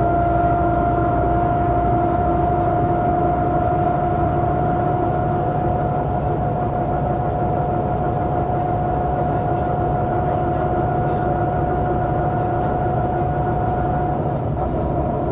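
1998 MAN NG 312 articulated city bus under way, heard from on board: a steady engine and drivetrain rumble with a steady high whine on top, as the bus holds an even speed. The whine fades out near the end.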